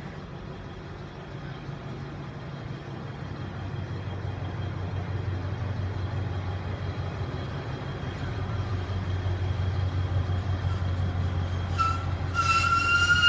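Plasser & Theurer 08-4x4/4S-RT track tamper travelling along the line, its diesel engine running as a low rumble that grows steadily louder as it approaches. About twelve seconds in, a high steady squeal from the machine's wheels on the rails starts and becomes the loudest sound.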